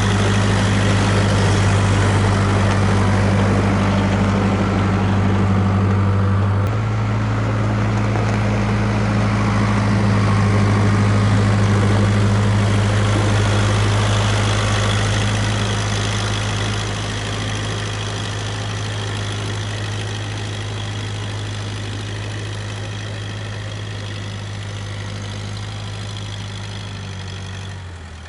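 Case 580K backhoe's four-cylinder diesel engine running steadily. Its pitch steps up slightly about seven seconds in, and it grows fainter through the second half, dropping further near the end.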